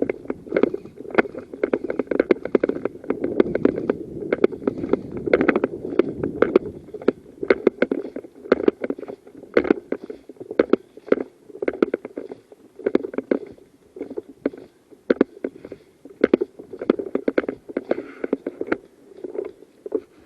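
Movement noise on the recording: rustling of clothing and kit with many irregular sharp clicks and knocks, a few a second, as the airsoft player carrying the camera moves.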